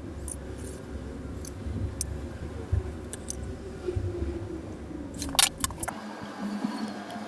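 Plastic Rubik's cube pieces clicking and clinking as they are handled, with a sharp cluster of clicks about five seconds in. A low handling rumble underneath cuts off suddenly about a second later.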